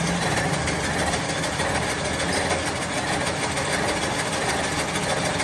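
Gear-cutting machine running steadily, its cutter cutting the teeth of a cast iron gear with a fast, even rattle.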